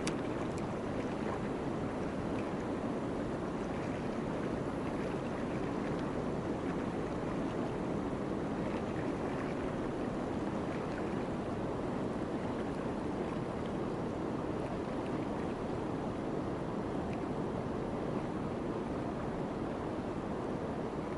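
Steady rush of a large river's current flowing over rocks.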